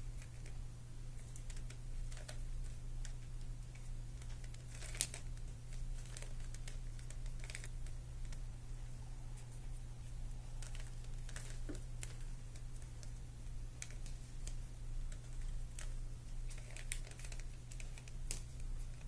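Rubik's cube being twisted by hand: irregular plastic clicks and clacks as its layers turn, over a steady low hum.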